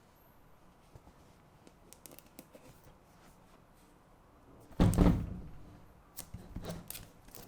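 Unboxing handling: faint clicks and rustles, then a heavy thunk about five seconds in as the boxed keyboard or its packaging is set down or knocked, followed by a few lighter knocks.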